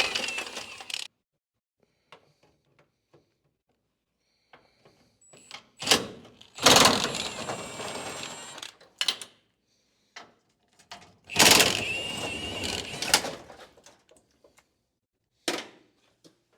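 Knocking, clunking and scraping from a pickup truck's dashboard being pried and pulled loose, in a few loud bursts of two or three seconds with sharp clicks and quiet gaps between.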